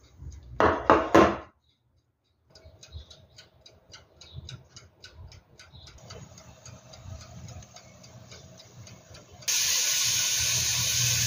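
Oven baking a tray of puff pastries: faint irregular ticking and crackling over a faint steady hum, then, near the end, a sudden loud steady hiss. There is a brief loud burst about a second in.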